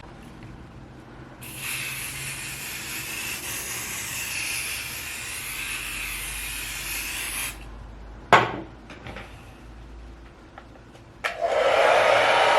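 An aerosol spray hisses steadily for about six seconds as a second layer goes on the hairline for laying the wig. A sharp click follows about eight seconds in, and near the end a hair dryer switches on and runs at a steady blow.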